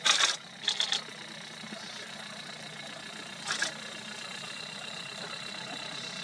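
A vehicle engine idling steadily, with a few short, high rattling bursts in the first second and again about three and a half seconds in.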